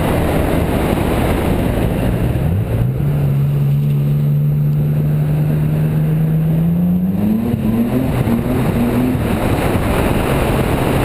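BMW E28's engine under way as the car drives: the engine note climbs, holds steady for a few seconds, climbs again about seven seconds in, then drops back to a lower note near the end, over continuous wind and road noise.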